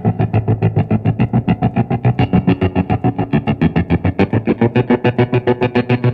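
Music: distorted electric guitar playing a fast, even, driving rhythm.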